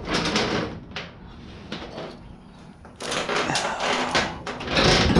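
Metal roller chain rattling and clinking as it is handled and fed around a sprocket: a few clicks at first, a quieter moment, then a dense clatter over the last two seconds.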